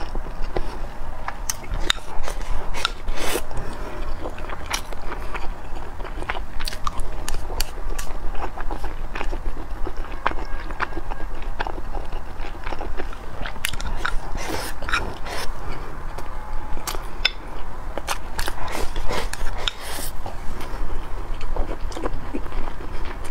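Close-miked eating: chewing and mouth sounds of rice and braised meat being eaten, with many short sharp clicks, some from chopsticks against a glazed ceramic rice bowl.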